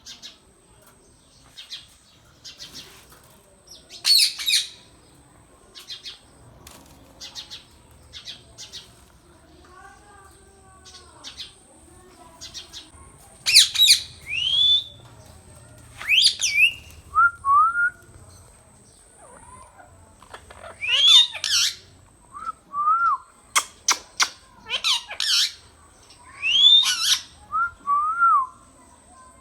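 Indian ringneck parakeet calling again and again: loud, harsh screeches in clusters, mixed with short whistled notes and small clicks.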